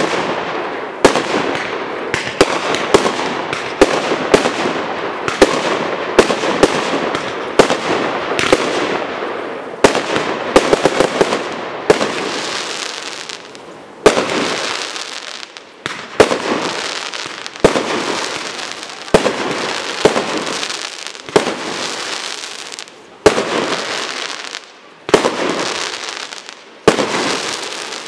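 Aerial fireworks shells bursting with sharp bangs, each followed by a fading hiss. The bursts come thick and overlapping for the first half, then as single bangs about every second and a half.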